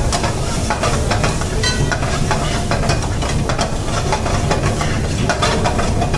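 Chopped tomato being stirred into frying onion-and-spice masala in a pan: sizzling, with a spoon scraping again and again against the pan, over a steady low rumble.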